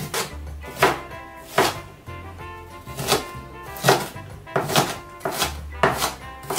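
Chef's knife chopping onion on a plastic cutting board: a series of sharp, irregularly spaced strikes, about eight in all, over background music.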